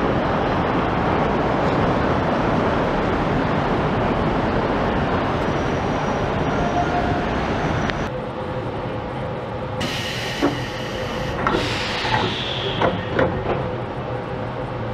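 Shonan Monorail suspended monorail train running, a steady rushing noise that cuts off abruptly about eight seconds in. It is followed by the quieter steady hum of the car standing at a station, with a few short tones and clicks.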